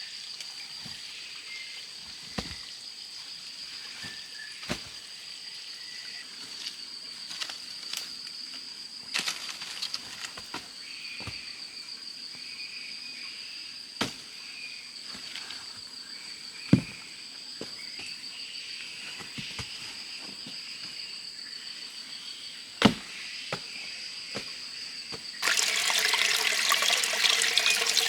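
Steady high-pitched pulsing drone of forest insects with scattered sharp knocks. Near the end, water pours or splashes loudly for a few seconds.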